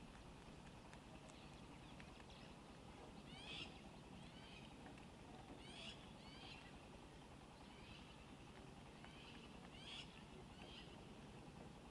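Faint, quiet outdoor background with short, high bird chirps that come in three pairs a few seconds apart.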